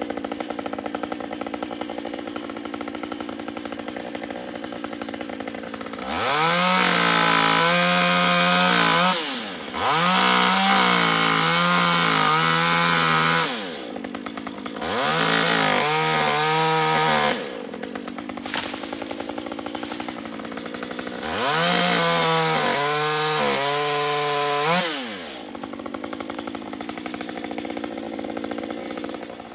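Two-stroke chainsaw idling, then revved to full throttle four times for a few seconds each while pruning branches, its pitch wavering under load and dropping back to idle in between.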